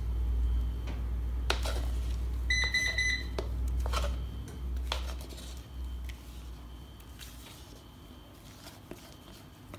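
A spatula scraping sponge batter out of a plastic mixing bowl onto a baking tray, with a few sharp taps, over a low hum that fades out about six seconds in. About two and a half seconds in, a kitchen appliance gives a short run of high electronic beeps.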